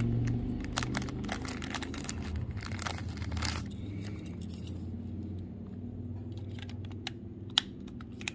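Clear plastic bag crinkling and rustling as small dashcam parts are handled, dense for about the first three and a half seconds, then a few sharp clicks near the end. A steady low hum runs underneath.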